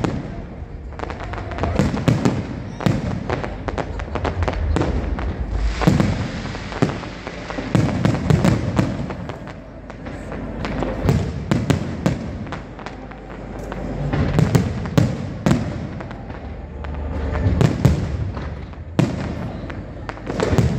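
Aerial fireworks display: shells bursting in many sharp bangs in quick, uneven succession over a steady low rumble.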